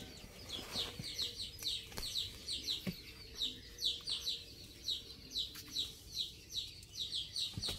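Birds chirping: short, high, slightly falling chirps about three a second, with a faint steady hum and a few soft knocks.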